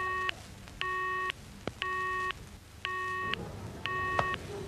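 Telephone busy tone: a steady beep about half a second long, repeating about once a second, with a single sharp click near the middle.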